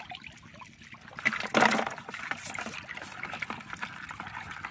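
Water dripping and splashing from a lifted mesh fish trap into a plastic bucket as its catch is shaken out, with a louder splash about one and a half seconds in.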